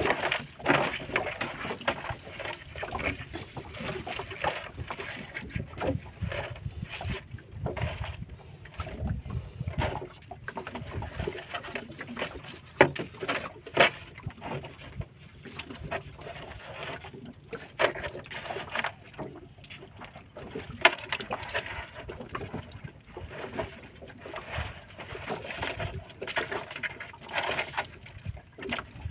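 Live swimming crabs being shaken and picked out of a nylon mesh net into a plastic tub: the net rustles and the crab shells and legs click and scrape against each other and the plastic, with a few sharper clacks.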